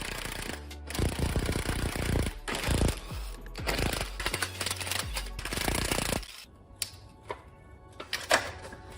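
Background music mixed with short stretches of rapid rattling, hammering tool noise, the sound changing abruptly every second or so.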